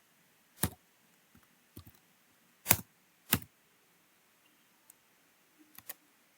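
Computer keyboard keys pressed one at a time: about seven separate clicks at irregular intervals, three of them louder than the rest.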